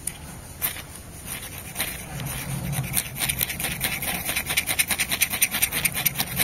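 Ferro rod being struck with a scraper to throw sparks onto sisal tinder: short, sharp scraping strokes, a few spaced ones at first, then a quick run of several a second from about halfway on.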